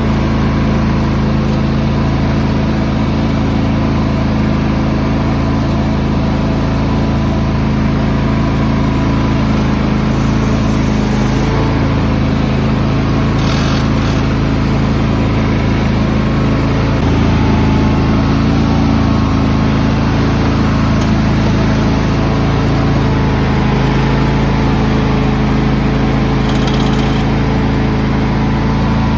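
John Deere X330 lawn tractor engine running steadily, with a brief scrape or rattle about halfway through.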